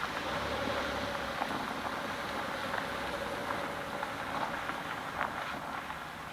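Steady rain, with scattered drops tapping sharply, and a faint steady tone in the first few seconds.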